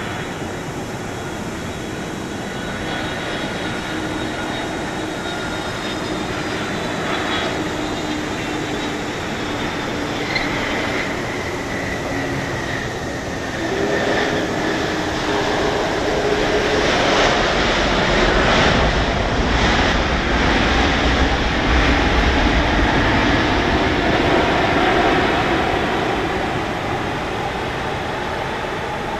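Airbus A300-600F freighter's twin turbofan engines on landing: a steady jet sound with whining tones that slide slowly down in pitch as it approaches and passes. About halfway through it swells into a louder, deeper roar for several seconds, then eases off near the end.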